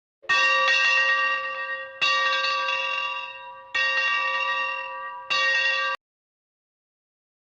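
A bell struck four times, about every one and a half to two seconds, each stroke ringing with several steady overtones and fading. The fourth stroke is cut off suddenly.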